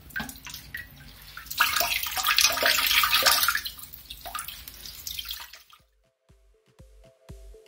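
A soaked towel being squeezed out and dunked in toilet bowl water, loud splashing and trickling for a couple of seconds, then smaller splashes. It cuts off suddenly and electronic music with a beat starts near the end.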